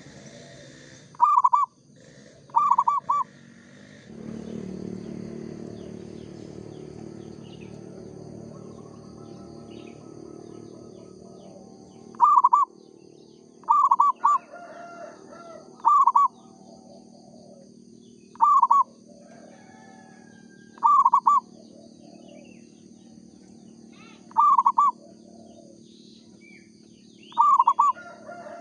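Zebra dove (perkutut) cooing: short, loud, trilled coos repeated about nine times at irregular gaps of a few seconds, with fainter bird calls in between. A low steady rumble runs under the calls for several seconds starting about four seconds in.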